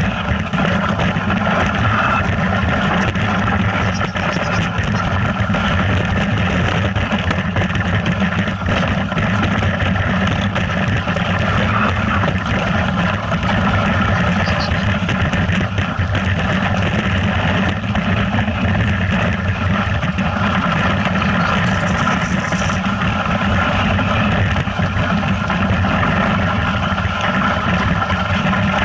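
Motor engine running steadily and continuously, heard from close by with rushing noise over it.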